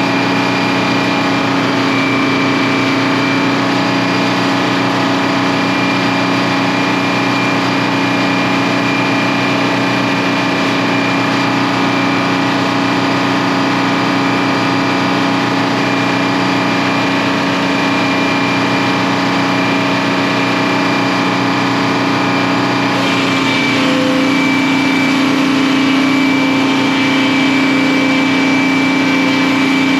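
Sawmill machinery and the stationary engine that powers it running steadily, a constant drone with a thin high whine over it. The sound shifts in tone about 23 seconds in.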